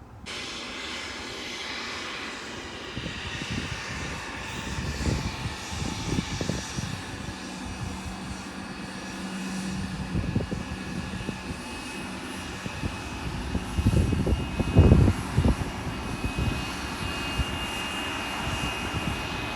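Airliner jet engines running, a steady high whine over a rumbling wash of noise that swells to its loudest about fifteen seconds in.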